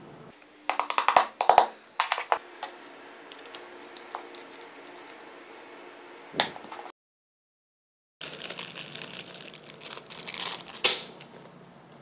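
Light, sharp metal taps from pliers seating a replacement clicky switch in a flashlight tailcap, several in quick succession. Scattered clicks and small rattles follow as the metal flashlight parts are handled. The sound drops out completely for about a second in the middle.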